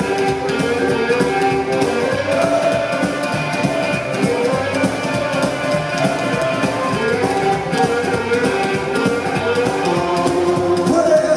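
Psychobilly band playing live: electric guitar, upright bass and drum kit, heard from within the crowd.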